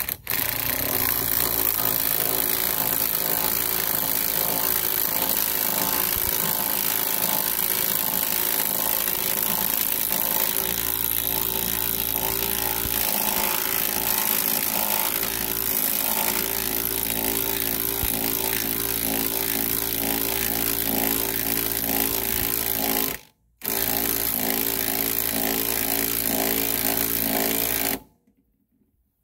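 Ryobi P235 brushed cordless impact driver hammering continuously as it turns a car jack's screw to raise the car. The run pauses briefly about 23 seconds in and stops about 28 seconds in.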